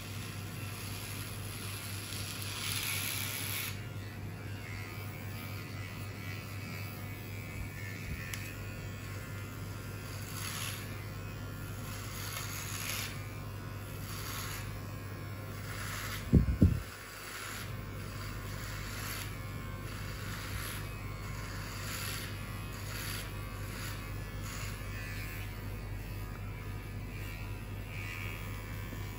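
Electric hair clippers buzzing steadily as they shave a head, the sound brightening briefly with repeated strokes, about once a second for much of the time. About halfway through there is one loud, dull thump.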